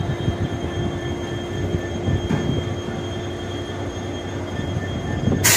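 A train standing at a station, its engine running steadily with a drone and several steady tones. Near the end comes a sudden loud hiss.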